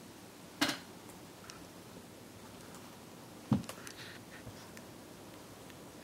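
Two sharp knocks about three seconds apart, the second followed by a few lighter ticks, over quiet room tone.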